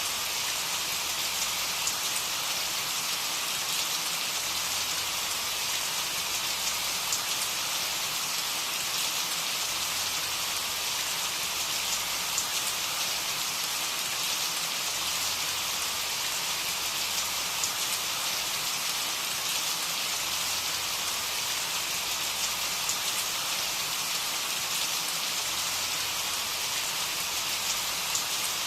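Steady rain falling on a surface, an even hiss with small scattered drop ticks.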